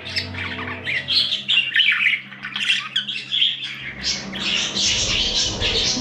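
Budgerigars chattering and squawking in quick high chirps, growing busier and denser over the last two seconds, over soft background music.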